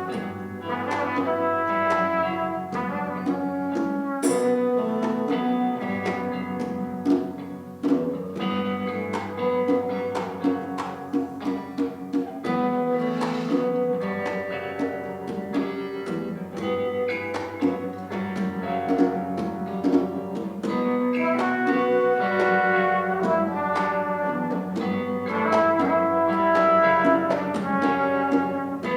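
A brass band (fanfare) playing: held and moving horn notes in several parts over frequent drum hits.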